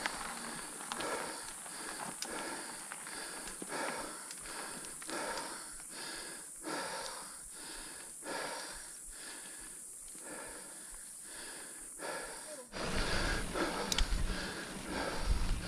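Mountain biker breathing hard while riding, with quick, heavy breaths about two a second. Near the end it gives way abruptly to a louder low rumble of tyres on the dirt trail and wind on the microphone.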